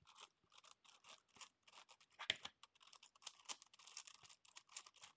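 Faint, quick plastic clicking and scraping of a Gigaminx, a five-layer dodecahedral twisty puzzle, as its layers are turned by hand, with one louder click about two seconds in.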